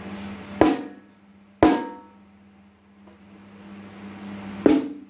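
Three single strikes on a Tama 6.5x14 snare drum fitted with a Fat Snare dampener, the second and third about three seconds apart. Each hit decays quickly with little ring: the dampener kills the ring for a fatter, heavier sound.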